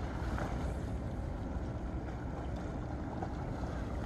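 Steady low rumble of wind on the microphone, with a faint wash of calm sea.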